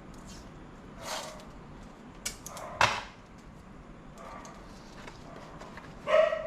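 Scattered clicks and clacks of hard plastic and metal parts being handled during laptop disassembly, with a sharp clack about three seconds in. A short pitched sound comes near the end.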